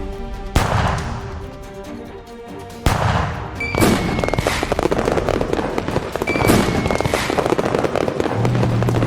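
Background music with sharp bangs about half a second, three seconds and four seconds in, then a dense, rapid crackling that runs on.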